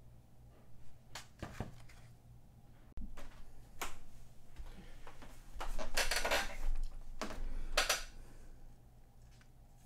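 Magazine pages being handled and rustled as the open magazine is laid on a desk: several short bursts of paper rustling, the longest and loudest about six seconds in.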